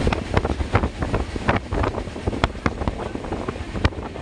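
Moving train heard at an open carriage window: wind rushing over the microphone, with the coach's running noise and many irregular sharp knocks and clatters.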